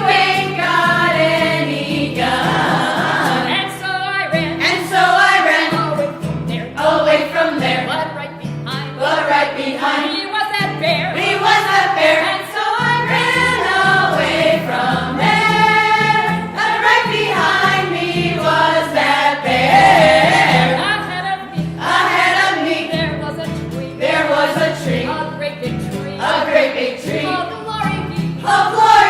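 A song sung by several voices together, with sustained wavering notes over a steady instrumental backing.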